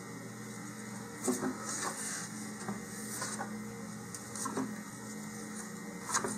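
Flat nylon shock cord rustling and scraping against the inside of a cardboard rocket body tube as it is fed in by hand: a handful of soft scuffs over a steady low hum.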